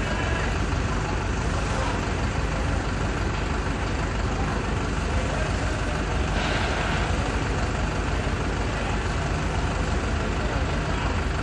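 Steady traffic noise with a vehicle engine running, a continuous low rumble under an even hiss.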